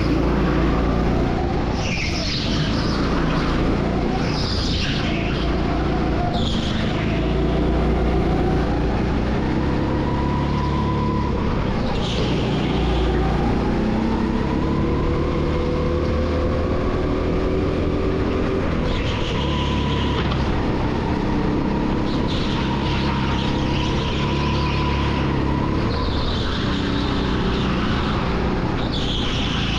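Indoor go-kart's motor running under throttle, its pitch rising and falling through the lap, with tyres squealing briefly in several corners.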